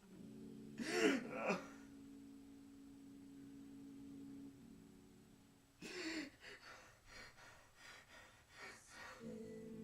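A person gasping and breathing heavily. There is one loud gasp about a second in and a run of shorter, ragged breaths in the second half, over held notes of background music.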